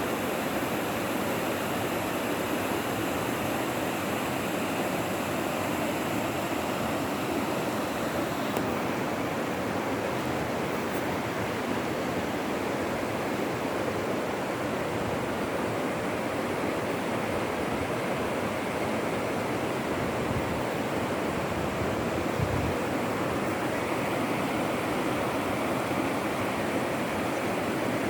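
Steady rushing water, an even, unbroken wash of noise that holds the same level throughout.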